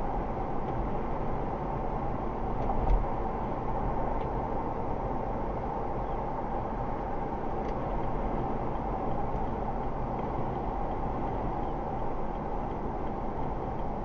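Car driving along a road, heard from inside the cabin: steady tyre and road noise with low engine rumble, and a single thump about three seconds in, like the wheels going over a bump.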